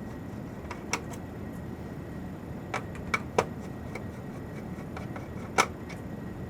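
Screwdriver taking small screws out of a server's metal chassis: a handful of scattered light clicks and taps over a steady background hiss.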